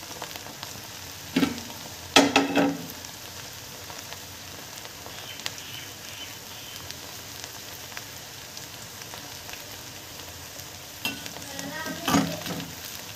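Raw banana and potato pieces deep-frying in sesame oil in a clay pot: a steady sizzle of the foaming oil. A few short louder sounds break in about a second and a half and two seconds in, and again near the end.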